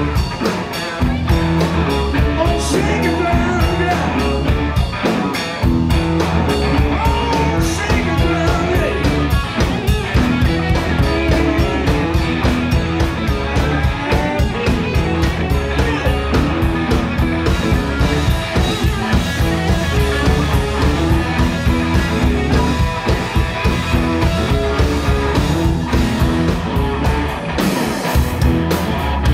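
Live blues-rock band playing: electric guitars, bass guitar and drum kit, with a lead singer's vocals over a steady drum beat.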